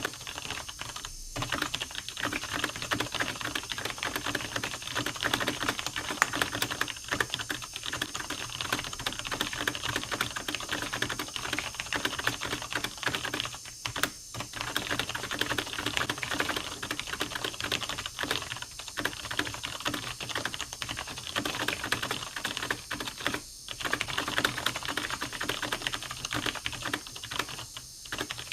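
Continuous fast typing on a computer keyboard: a dense run of key clacks, broken by a few brief pauses.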